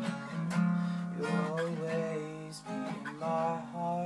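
Acoustic guitar strummed in steady chords, with a man's voice singing a rising and falling line over it twice.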